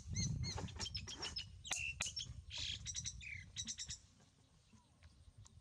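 Short, high chirping calls in quick runs over a low rumble and some clicks, stopping about four seconds in.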